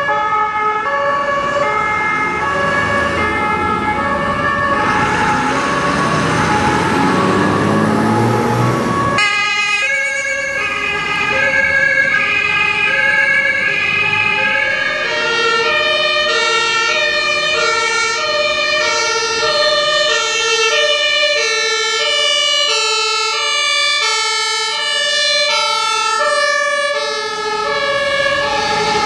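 German two-tone sirens (Martinshorn) on responding fire service vehicles, alternating between a high and a low note. The first part has heavy engine and road noise under the siren. About nine seconds in the sound changes abruptly to two sirens sounding together, out of step with each other.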